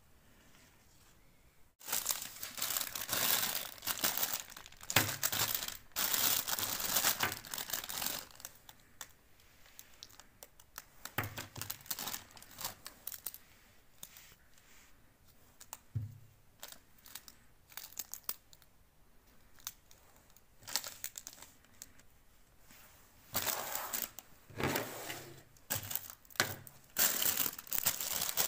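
Clear plastic bag and cellophane wrappers of stick lollipops crinkling in irregular bursts with quiet gaps as they are handled, starting about two seconds in.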